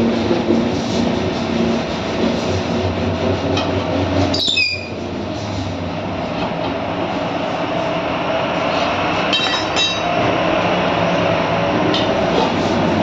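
A loud, steady mechanical drone from a running machine or engine. Over it, a short squeak about four and a half seconds in and a few quick clinks near ten seconds come from a tyre lever prying a rickshaw tyre off its steel wheel and pulling out the inner tube.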